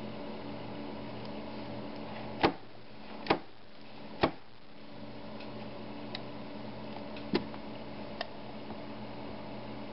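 Sharp clicks or taps as a hand handles a modem: three about a second apart a couple of seconds in, a fourth around seven seconds in, and a few fainter ticks, over a steady low electrical hum.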